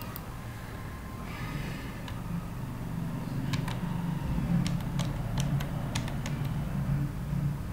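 Computer keyboard keys clicking as a short line of code is typed: about ten separate key presses, starting about halfway in, over a steady low hum.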